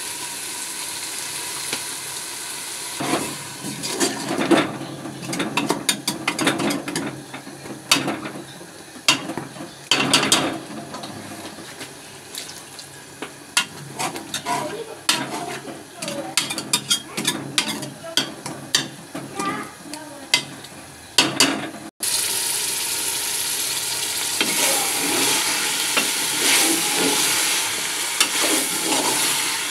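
A spoon stirring and scraping food frying in an aluminium pressure-cooker pot: many quick knocks and scrapes against the pot over a steady sizzle. About two-thirds of the way through, the sizzle jumps to a louder, steadier level as cauliflower and potato pieces fry, with only occasional scrapes.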